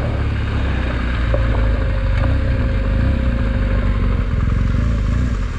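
Motorcycle engine running steadily, with its firing pulses prominent.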